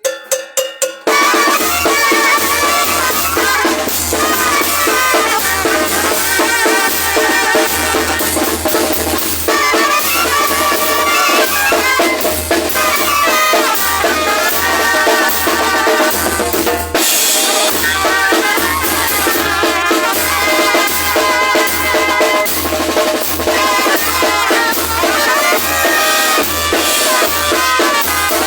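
Zacatecan tamborazo band playing: a brass melody over the steady beat of the tambora bass drum, with snare and cymbal. The band comes in about a second in, after a few sharp clicks.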